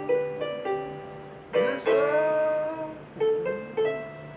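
Portable electronic keyboard played with a piano sound: chords struck one after another, each fading as it is held, a big one about a second and a half in and a quick run of three near the end. A steady low hum sits beneath.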